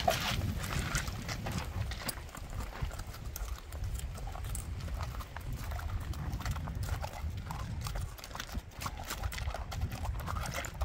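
Hooves of laden pack horses clopping and knocking on a loose, stony trail as they walk, in an uneven run of sharp steps over a low rumble.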